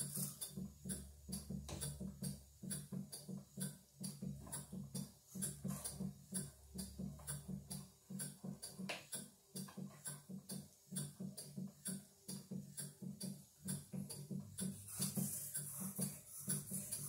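PM Research No. 3 vertical steam engine running at a quick, even pace on low steam pressure, its exhaust puffing on every stroke, belt-driving a 1923 Delta scroll saw whose blade clatters up and down as it cuts thin pine.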